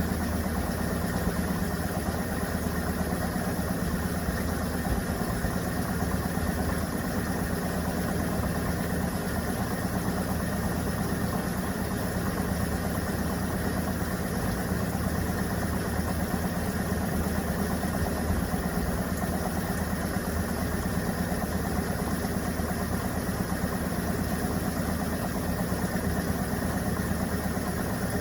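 Electrolux Turbo Compacta LTC07 top-loading washing machine running with a steady motor hum.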